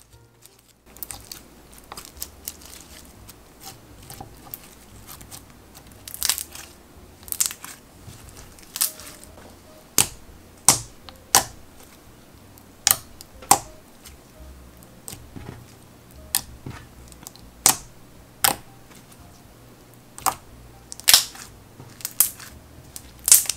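Hands squishing, stretching and poking a thin, slightly tacky clear slime: a soft wet crackle with irregular sharp pops and clicks as air bubbles in the slime burst, about one a second from about six seconds in.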